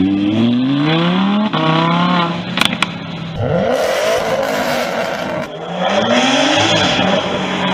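Performance car engine accelerating hard through the gears: its pitch climbs, drops at each shift and climbs again. Two sharp cracks come about two and a half seconds in, and a stretch of rushing noise follows in the middle.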